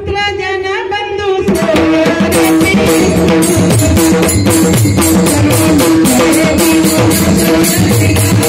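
Kirtan accompaniment music starts about a second and a half in, after a brief end of a woman's voice: hand drums and sharp percussion strokes keep a steady, fast beat over a held drone.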